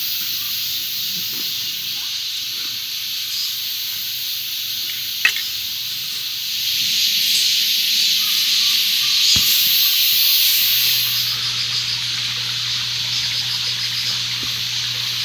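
Food sizzling on a hot pan, a steady hiss that grows louder for a few seconds midway, with a couple of sharp clicks.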